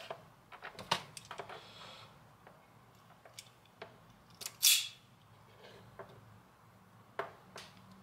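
Hand wire stripper and thin wires being handled: small clicks and rustles, one loud sharp snap about halfway through, and a couple more clicks near the end as the stripper's jaws are worked on the wire ends.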